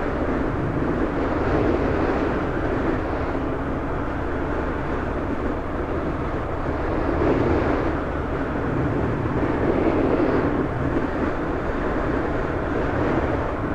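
Yamaha FZS600 Fazer's inline-four engine under way, with wind rushing over the helmet-mounted microphone; the rush swells and eases a little from time to time.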